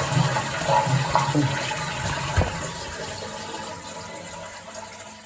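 Toilet flushing through a newly fitted cistern flush valve: a rush of water that fades steadily as the cistern empties, with a single knock about two and a half seconds in.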